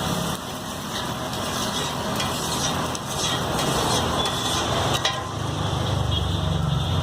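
Egg ghotala sizzling and being stirred on a street-food griddle, with small scraping clicks. Street traffic runs underneath, and a low vehicle rumble comes in about five seconds in.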